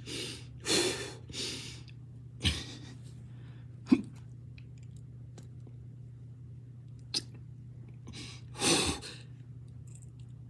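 A man's forceful, straining exhalations and grunts as he strains through weighted push-ups: several short bursts in the first three seconds and a longer one about eight and a half seconds in. Two sharp clicks come between them, over a low steady hum.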